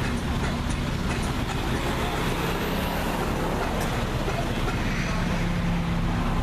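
Several classic Minis' four-cylinder engines idling together in a line of stationary cars, a steady low hum that does not change.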